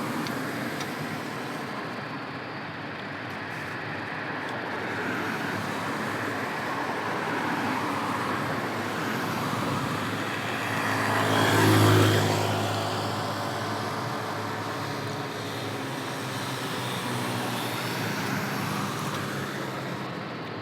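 Road traffic noise, with one vehicle passing close by about twelve seconds in: its engine swells to the loudest point and drops away as it goes past.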